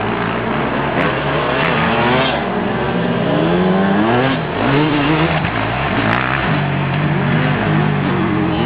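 Honda CRF250 four-stroke dirt bike engine being ridden hard, its pitch rising and falling over and over as the throttle is opened and shut. There is a brief drop in level around the jump midway.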